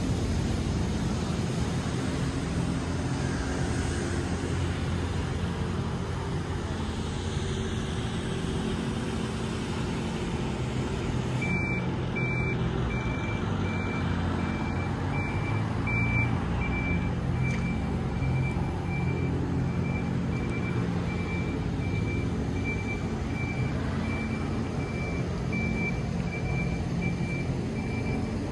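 Steady low rumble of street traffic. About a third of the way in, a vehicle's reversing alarm starts beeping a single high tone about twice a second and keeps on.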